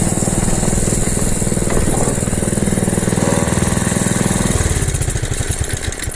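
Mini bike's small single-cylinder four-stroke engine running at steady high revs, then dropping to a slower, uneven chug about four and a half seconds in. The stock governor keeps kicking in and holding the engine back.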